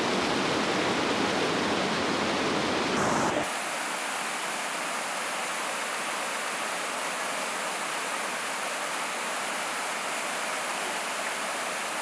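Waterfall white water pouring over rock, a steady rushing hiss. About three and a half seconds in, the low rumble drops away and the sound turns brighter and thinner.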